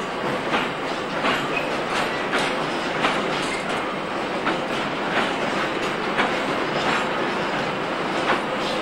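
Steel freight hopper wagons rolling slowly past, their wheels clicking over the rail joints about every two-thirds of a second over a steady rumble, with a faint wheel squeal.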